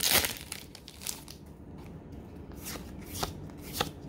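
Foil trading-card booster pack tearing and crinkling, loudest in a burst at the start. About three sharp card flicks follow in the second half as the cards are leafed through.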